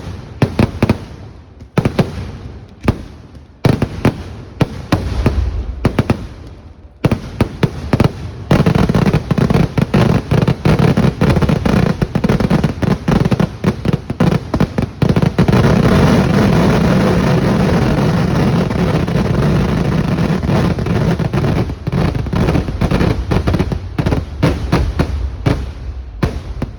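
Fireworks display: separate loud bangs for the first several seconds, then from about eight seconds in a dense, continuous barrage of rapid-fire explosions that thins a little near the end.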